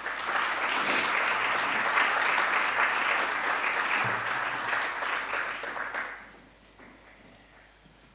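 Audience applauding, a dense clapping that carries on for about six seconds and then dies away.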